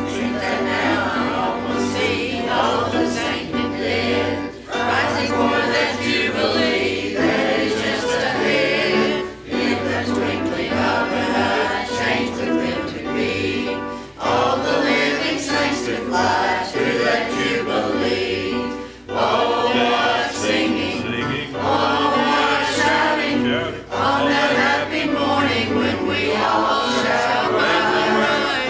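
Mixed men's and women's church choir singing a gospel hymn in lines of about five seconds, with brief breath breaks between them.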